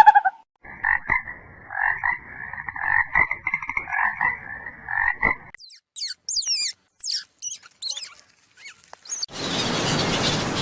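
A run of short, rapid, rasping animal calls repeating for about five seconds, then a few seconds of quick high chirps that sweep downward, then a dense noisy sound starting near the end.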